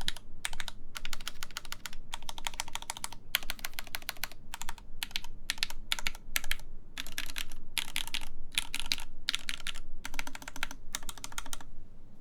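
Typing on a full-size 43Studio 4398 mechanical keyboard with Krytox 205g0-lubed Gateron X linear switches in an aluminum plate: fast runs of keystrokes in bursts with brief pauses between them. The typing stops about half a second before the end.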